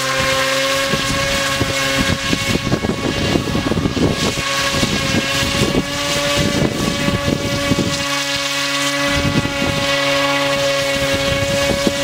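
Large multirotor drone hovering, its propellers giving a steady droning hum. Wind gusts buffet the microphone from about a second in until about eight seconds in.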